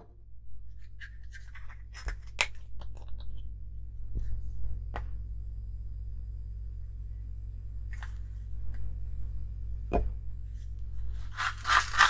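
A few sharp clicks and knocks as a glass bowl and a toothpaste tube are handled, then near the end a grainy rush of granulated sugar tipped from a plastic tub into the glass bowl. A steady low hum runs underneath.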